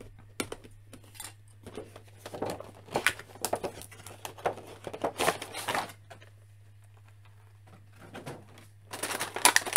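Cardboard action-figure box and plastic blister tray being handled and pulled apart, with irregular rustling and scraping. The rustling stops for a couple of seconds and starts again near the end.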